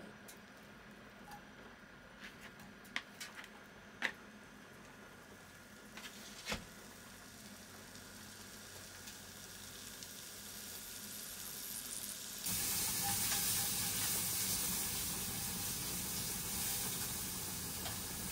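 Minced meat sizzling in a frying pan on a portable cassette gas stove. A few light clicks and knocks come in the first seconds, the hiss builds slowly, and about two-thirds of the way in the sizzling suddenly becomes much louder as the meat is stirred.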